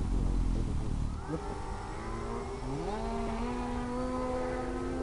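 Small RC plane's electric motor and propeller spinning up in two steps, rising in pitch about a second and a half in and again near three seconds in, then running at a steady whine.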